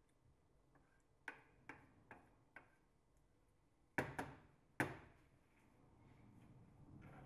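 Wooden spoon knocking against the side of a stainless steel saucepan of tomato sauce while stirring: four light clacks, then three sharper, louder knocks about four seconds in.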